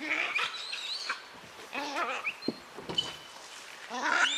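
Shrill, wavering squeals from a yellow-throated marten and a langur locked in a fight, in three loud outbursts: at the start, about two seconds in, and near the end, where the cry climbs sharply in pitch.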